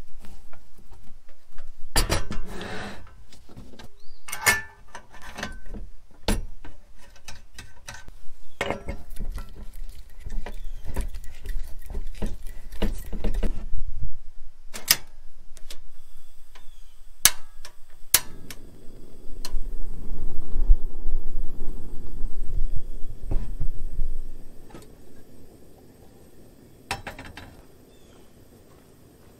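Clicks, knocks and clatter of camp gear being handled, then a steady rushing noise for about six seconds that stops abruptly, leaving only faint background.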